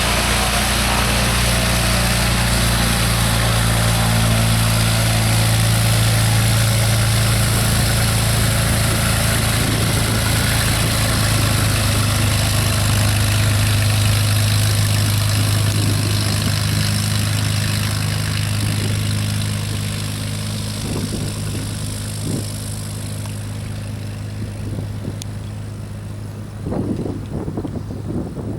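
Light propeller airplane's piston engine running with a steady drone, fading gradually over the last ten seconds or so. A few brief thumps come near the end.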